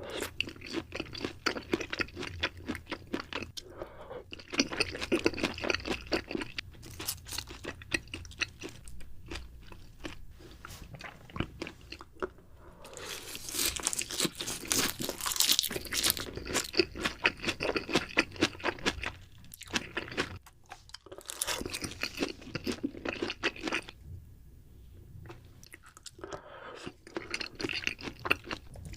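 A person chewing and crunching crisp food close to the microphone, in bursts of crackling bites with short pauses between them; the loudest crunching comes about halfway through.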